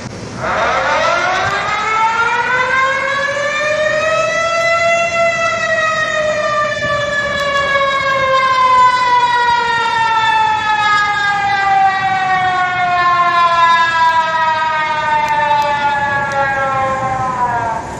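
Civil defense warning siren sounding one long cycle: it rises in pitch for about five seconds, then falls slowly and steadily, and cuts off suddenly near the end.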